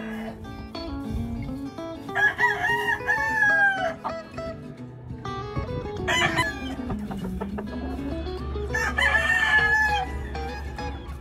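Kelso gamecock crowing twice, once about two seconds in and again near the end, over background music.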